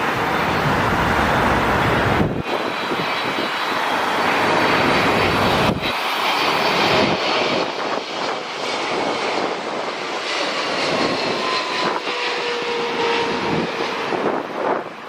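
Boeing 777 on landing approach passing by, the steady noise of its twin GE90 turbofan engines with faint whining tones that slide slightly in pitch.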